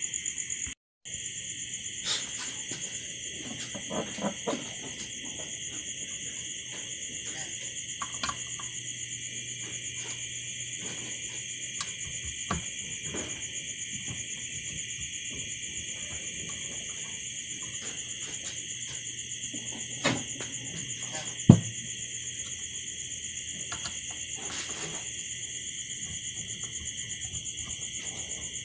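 A steady high-pitched trill of night insects such as crickets, broken by scattered light clicks and knocks of a screwdriver and plastic headlight parts being handled. The sharpest click comes about two-thirds of the way through.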